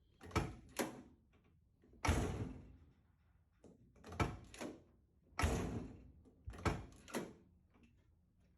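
The driver's door of a 1987 Monte Carlo SS being opened and shut several times, with lighter latch and handle clicks and two heavier shutting thuds at about two and five seconds in. The door is being tested on its freshly replaced hinge pins and bushings.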